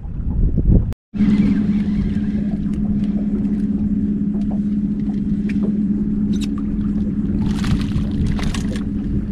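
Boat motor running with a steady low hum while a speckled trout is reeled in. The sound drops out for a moment about a second in. Near the end comes a couple of seconds of splashing.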